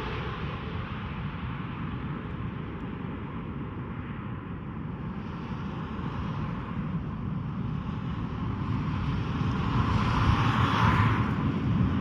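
Jet engine roar of a Boeing 777-300ER's GE90 engines, a steady rushing sound that swells louder about ten seconds in as the airliner draws closest.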